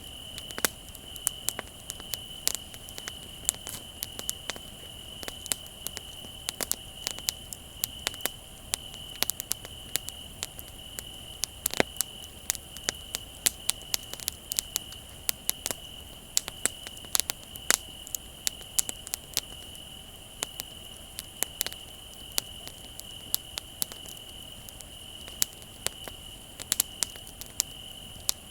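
Wood fire crackling and popping in irregular sharp snaps, over the continuous high trill of crickets.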